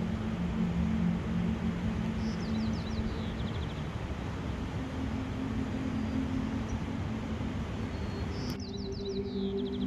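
A small songbird singing twice, each song a quick trill of high notes that falls in pitch, over a steady rushing background and a low hum.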